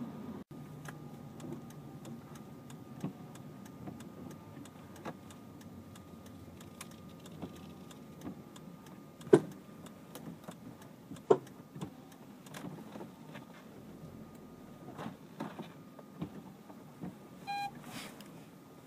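Scattered clicks and clunks from a car's suspension, the abnormal noise being shown, with two sharper knocks near the middle over a steady low hum. A short electronic beep sounds near the end.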